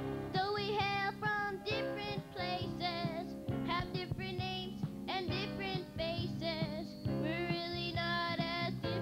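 A children's chorus singing a song with instrumental accompaniment, the voices coming in right at the start after an instrumental lead-in.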